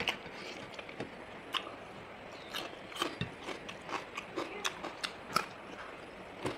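A person eating chicken wings close to the microphone: irregular biting, crunching and chewing, with sharp clicks scattered through.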